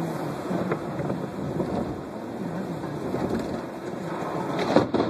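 Thunder rumbling over rain and the tyre noise of a car driving on a wet road, with a sharp loud thump near the end.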